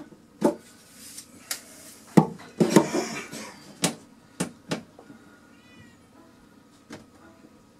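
Sharp wooden knocks and clicks from a wall cabinet being pushed and shifted into place against the wall: about ten, irregularly spaced, over the first five seconds, and one more near seven seconds. A faint, short, wavering high call sounds near six seconds.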